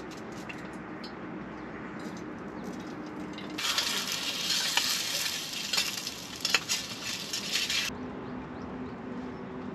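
Sizzling like food frying in a hot pan, with sharp pops, starting a few seconds in and cutting off suddenly about four seconds later. A faint low hum runs before and after it.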